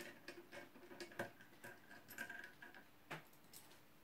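Faint, scattered small clicks and ticks as the finger stop is worked off the rotary dial of a GPO 746 telephone, with a slightly louder knock about three seconds in.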